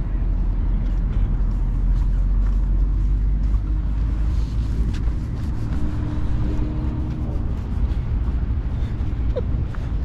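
Wind buffeting the camera microphone: a steady, loud low rumble, with a few faint clicks over it.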